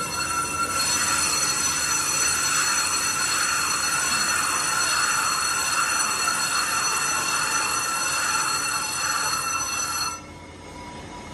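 Brake lathe resurfacing a spinning brake rotor: the tool bit cutting the disc surface gives a steady, high-pitched metallic squeal. The squeal cuts off suddenly about ten seconds in, leaving the quieter running of the lathe.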